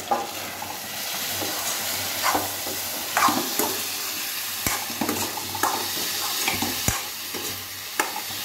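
Lentils and potato frying in hot oil in a stainless-steel kadai, sizzling steadily while a steel ladle stirs them, scraping and giving a few sharp clinks against the pan.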